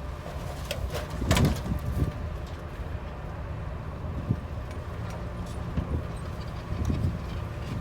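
Bulldozer's diesel engine running with a steady low rumble while pushing earth, with a short loud clatter about a second and a half in.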